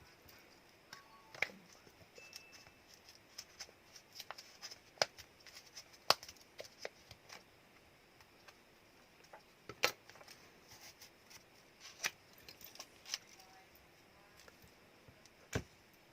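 Irregular small clicks and taps of hands and small tools handling the parts of a Samsung Galaxy A02s phone, with a handful of sharper knocks among them.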